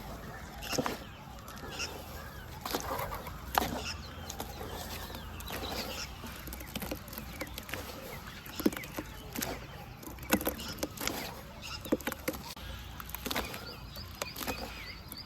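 Lumps of red dirt crumbling and dipping into water, giving scattered sharp crackles and small splats, with chickens clucking in the background.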